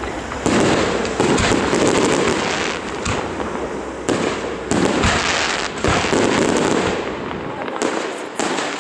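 Aerial fireworks shells launching and bursting: a rapid series of sharp bangs with dense crackling between them.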